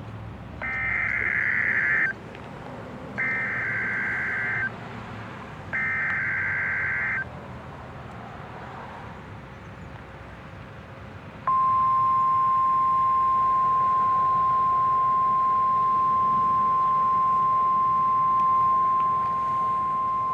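Emergency Alert System activation on a weather radio for a test tornado warning: three bursts of the screechy digital SAME header, each about a second and a half, and after a few seconds' pause the long, steady single-pitch warning alert tone, starting a little past halfway through.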